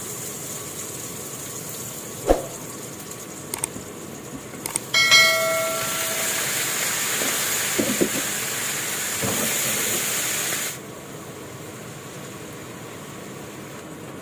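Tiger prawns going into hot oil in a pan and sizzling for about six seconds, starting with a sudden loud hiss and cutting off abruptly; a knock and a few clicks of pan and utensils come before.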